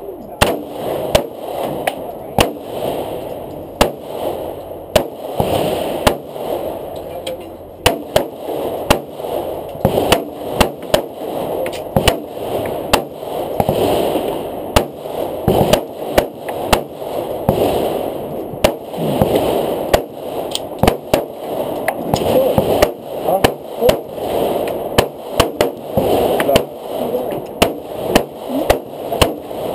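Handguns firing over and over, sharp shots at an uneven pace of about one or two a second.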